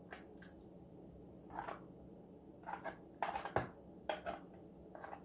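Eating noises while crab innards in the shell are spooned up with seafood dipping sauce and eaten: a scattered series of short clicks and smacks, about eight of them.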